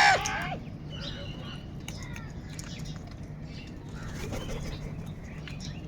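A crow's loud, harsh caw ending about half a second in. It is followed by fainter caws and calls from other crows, with scattered small ticks and rustles.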